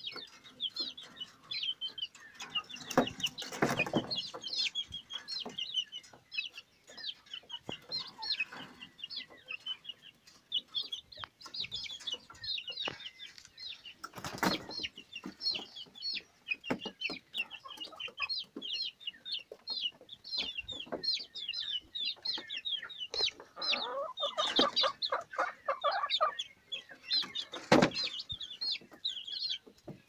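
Young chickens peeping with rapid, short high chirps all the way through, broken by a few louder knocks.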